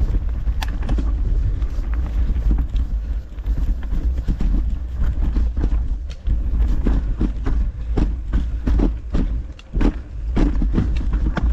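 Mountain bike riding over a rough, rocky trail: a steady low rumble with frequent clattering knocks and rattles as the bike hits rocks and roots, coming thicker in the second half.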